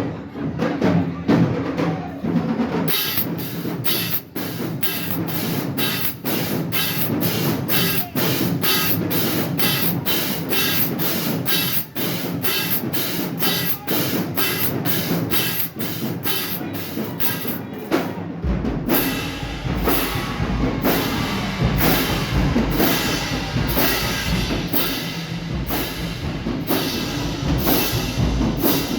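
Marching band percussion playing a steady, driving drum beat with snare and bass drums. About two-thirds of the way in the pattern changes and deep bass drum hits come in, making the sound fuller.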